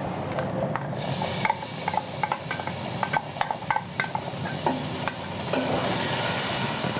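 Chopped onions hit hot oil in a stainless saucepan and start sizzling suddenly about a second in, with the clicks and scrapes of a wooden spoon pushing them out of a glass jar and stirring them in the pan.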